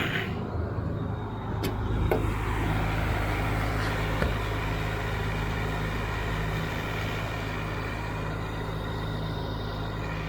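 Large diesel engine running steadily under load, its low note settling in over the first couple of seconds.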